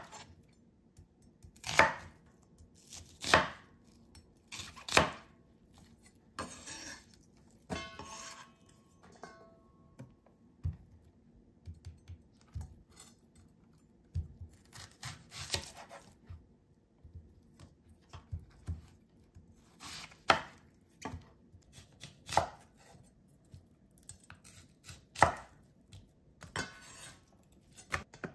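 Kitchen knife slicing peeled onions on a wooden cutting board: sharp knocks of the blade hitting the board at irregular intervals, a second or more apart, with quieter cutting and handling sounds between.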